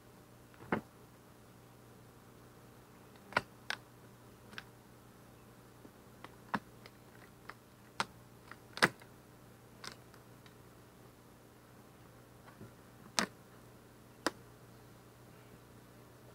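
Light, irregular clicks and taps of beehive frames and hive parts being handled, about fifteen scattered sharp knocks over a faint steady low hum.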